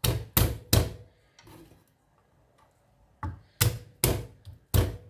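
Knife knocking hard against a wooden cutting board as a whole garlic clove is crushed rather than chopped. Three quick knocks, a pause of about two seconds, then four more.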